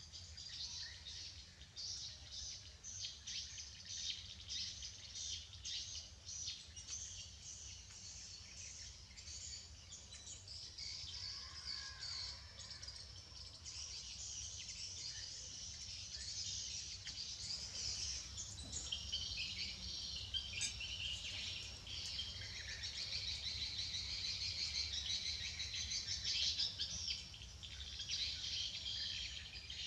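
Birds chirping in a dense chorus of high, rapid calls, growing a little louder past the halfway point.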